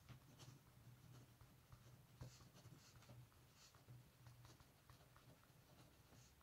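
Faint scratching of a ballpoint pen writing on paper, a run of short strokes and light taps.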